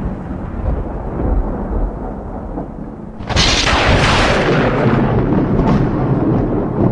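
A loud, deep rumble like thunder, with a sudden hissing crash about three seconds in that fades slowly.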